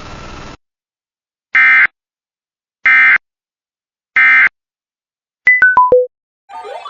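Emergency Alert System end-of-message code: three identical short, loud bursts of screechy digital data tone about 1.3 s apart, after the warning's noisy audio cuts off. Four quick beeps follow, stepping down in pitch.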